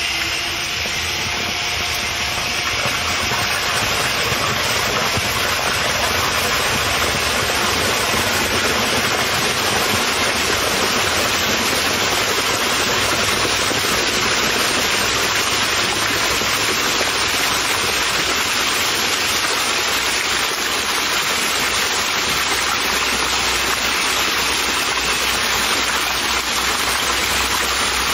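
Water jets gushing from pipes onto a spinning model water turbine, a steady rushing and splashing that builds over the first few seconds and then holds.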